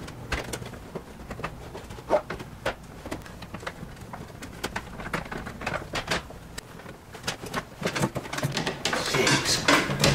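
Stiff electrical cable strands being bent and pushed around inside a metal breaker panel: irregular clicks, scrapes and rustles of copper wire against the steel box and lugs. A low voiced hum or grunt comes near the end.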